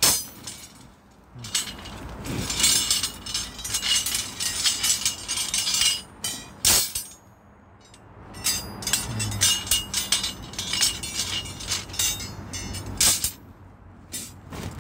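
Steel rebar bars and bent stirrups clinking and clattering against one another as they are handled and gathered from a pile, in several runs of sharp metallic clinks with short pauses between.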